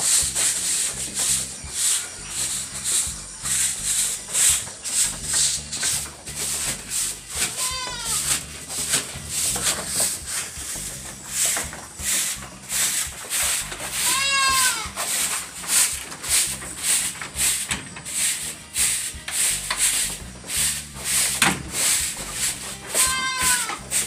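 A broom sweeping a slatted wooden pen floor in quick repeated strokes, with Anglo-Nubian goats bleating three times: about a third of the way in, just past halfway, and near the end.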